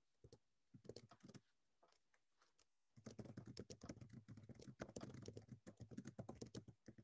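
Faint computer keyboard typing: a few keystrokes near the start, a pause of about a second and a half, then quick continuous typing from about three seconds in.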